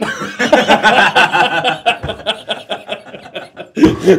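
Several men laughing hard together, breaking out suddenly, with a fresh burst of laughter near the end.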